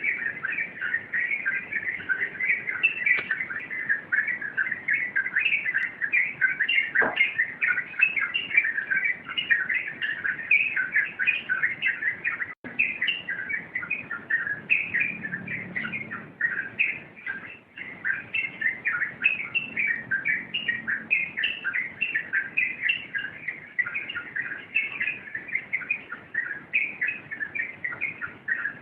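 Yellow-vented bulbul (trucuk) singing a continuous, rapid run of short chirping notes, many each second, broken only by a split-second gap about midway.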